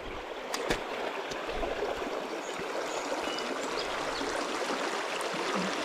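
Small river's current running steadily over its bed, an even rushing of flowing water, with a few faint clicks in the first second or so.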